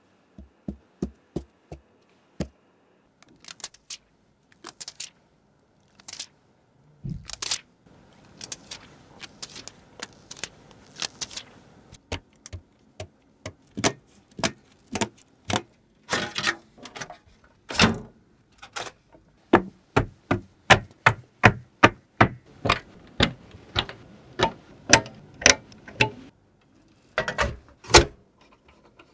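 Computer hardware being tapped and clicked: irregular sharp clicks and knocks, sparse at first and coming quicker and louder in the second half.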